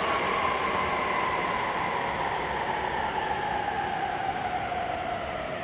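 Electric train running noise at a station platform: a steady hum with a pair of whining tones that slowly fall in pitch as the sound gradually fades.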